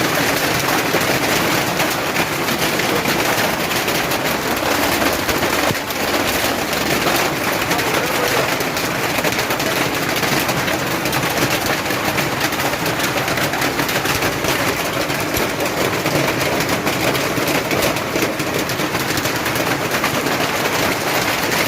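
Hailstorm: heavy hail pelting down in a dense, unbroken clatter of countless rapid impacts, loud and steady throughout.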